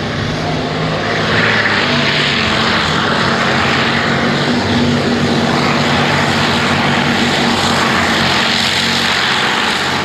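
Modified pulling tractor's engine running flat out under full load during a tractor pull, a loud steady drone with a dense roar over it. The sound falls away right at the end.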